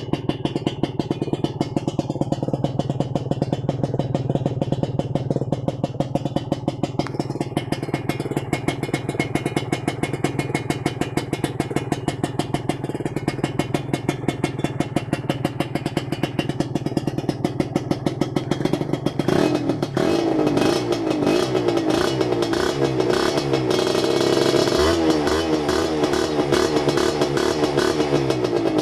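Kawasaki Serpico 150 two-stroke motorcycle with an aftermarket LMN exhaust idling with a steady rapid beat, then, about two-thirds of the way through, blipped and revved repeatedly, the pitch climbing and falling with each blip. The engine is being run to clear smoke after the bike has sat unridden.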